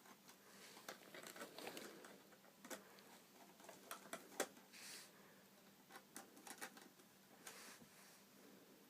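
Faint, scattered clicks and light scrapes of a Phillips screwdriver backing out the screws of an iMac's RAM access panel.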